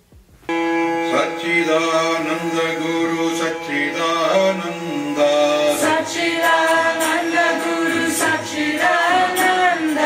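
Background music with a singing voice over a steady held tone, starting suddenly about half a second in.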